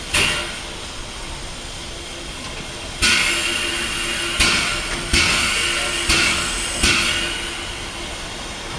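Steam locomotive 310.093 giving six sharp bursts of hissing steam, each fading over about a second: one right at the start, then five closer together between about three and seven seconds in. A faint steady hum runs underneath.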